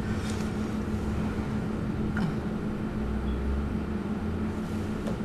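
Steady low background hum, with a deeper rumble that swells about three seconds in and eases off a second and a half later.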